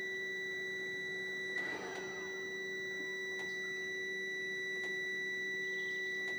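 A steady, high-pitched electronic whine, with a short rattle about two seconds in.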